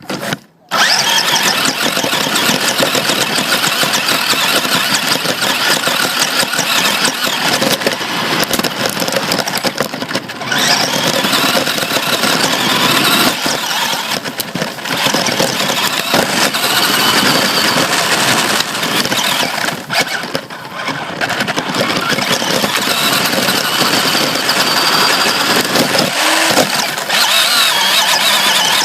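Radio-controlled Tamiya Holiday Buggy driving on a 540-size brushed electric motor, its motor and gears whining along with tyre noise, the level dropping briefly a few times as it eases off.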